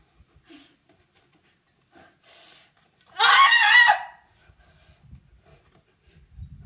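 A rock climber's loud yell of effort, about a second long, during a hard move near the top of the route.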